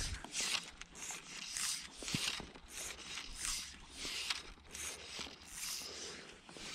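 Fly line being stripped and cast, hissing through the rod guides and the hand in a run of short, dry swishes, about one or two a second, with a few faint clicks.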